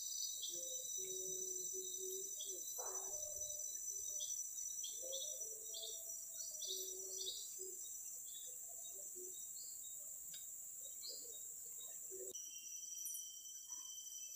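Steady, high-pitched drone of crickets and other insects in tropical riverside forest, with scattered short bird chirps over it. The insect drone changes abruptly about twelve seconds in.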